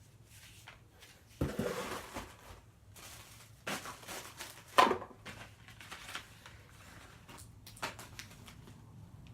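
Handling noises from the unboxed items and their packaging: a few short bursts of rustling and crinkling, the loudest about five seconds in.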